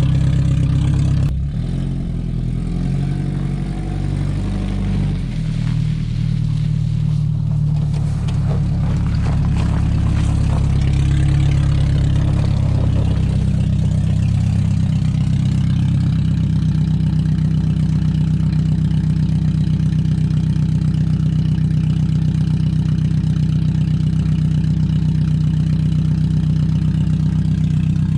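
A 1999 Toyota RAV4's four-cylinder engine running with no exhaust system fitted, which makes it loud. Its pitch drops suddenly about a second in and shifts around for several seconds, then it settles to a steady idle.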